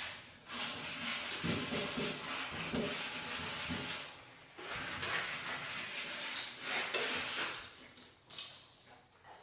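Plastic wire molding rubbing and scraping as it is handled against the wall. The scraping comes in two long stretches, with a short break about four seconds in, and fades toward the end.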